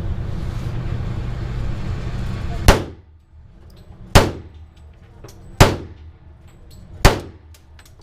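Four pistol shots from a 1911 firing .45 ACP, evenly spaced about a second and a half apart, the first coming nearly three seconds in. Each shot is very loud with a short ringing tail. Before the first shot there is a steady low rumble.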